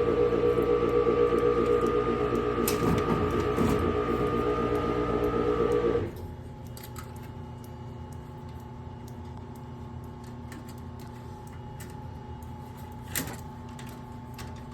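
A furnace motor's steady hum, made of several steady tones, stops abruptly about six seconds in, leaving a fainter hum and a single click near the end.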